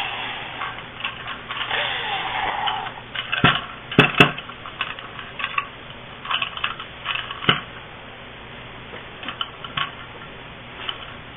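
Hands working with small tools and electrical parts: a whirring sound dies away over the first three seconds, then scattered clicks and knocks follow, the sharpest a quick pair about four seconds in.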